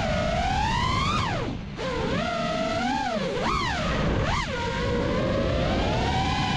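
FPV freestyle quadcopter's Blackbird v3 1975kv brushless motors on a 6S battery, whining and swooping up and down in pitch with the throttle. About a second and a half in the whine drops away sharply and briefly as the throttle is chopped, then climbs again, with more quick dips and rises after.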